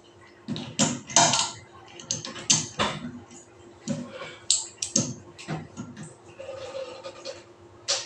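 Adjustable wrench clicking and scraping against a metal fitting at the back of a ceramic toilet as the fitting is turned, in irregular sharp clicks and short scrapes.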